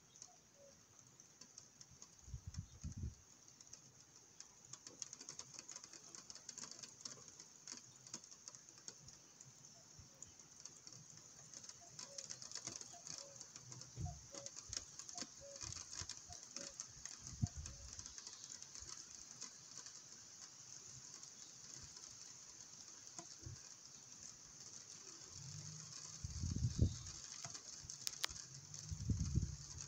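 Rain pattering steadily, with a few short low rumbles, the strongest near the end.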